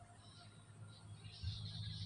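Faint outdoor ambience: a low steady rumble, with birds chirping from about one and a half seconds in.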